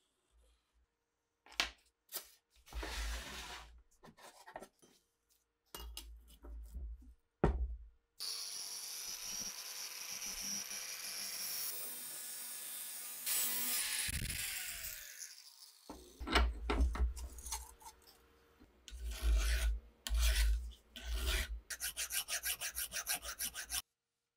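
Metalworking on the steel blank of an old cleaver. First come short scratching strokes of a scriber drawn along a steel ruler. About eight seconds in, a steady hissing cut with a high whine starts as the steel is cut through with sparks flying, stopping about eight seconds later. It is followed by a run of short rasping strokes that quicken to about three a second.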